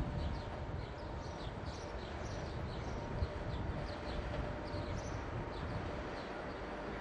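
Low rumble of an AC electric locomotive moving slowly in with its coaches, with a faint steady hum. Small birds chirp in short, repeated calls over it.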